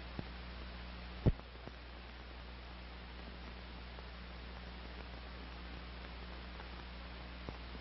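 Steady background hiss and low mains hum of an old film soundtrack, with one sharp pop a little over a second in and a few faint clicks.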